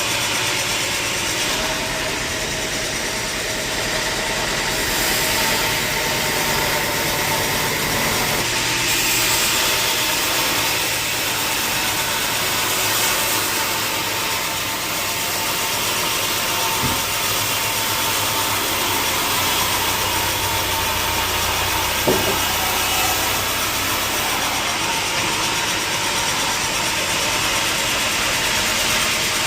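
Sawmill machinery running steadily while its saw cuts through a log, with a sharp knock about two-thirds of the way through.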